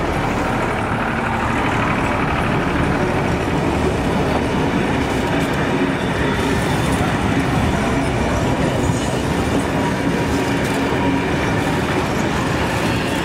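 Heritage steam-hauled passenger carriages rolling slowly past at close range: a steady rumble of steel wheels on the rails.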